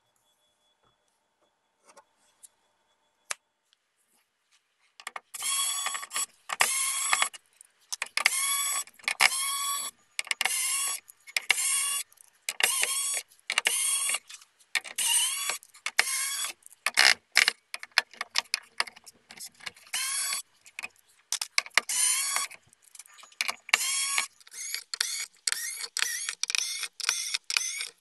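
Cordless electric screwdriver whirring in short bursts, one after another, backing out the screws of a PS5's metal shield plate. A few light clicks come first; the whirring starts about five seconds in, and the bursts grow shorter and quicker near the end.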